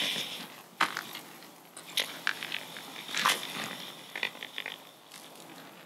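Footsteps crunching on a gravel and leaf-litter path, with scattered sharp clicks and rustles about once a second, growing fainter toward the end.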